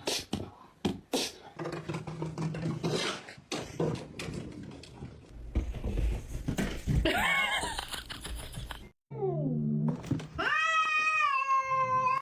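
A cat meowing: a short call about seven seconds in, a falling meow about nine seconds in, then a long drawn-out yowl starting about ten seconds in. Before that, scattered clicks and knocks.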